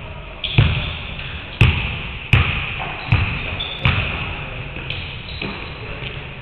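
Basketballs bouncing on a hardwood gym floor: about seven sharp thuds, roughly one every three-quarters of a second, each echoing through the large hall.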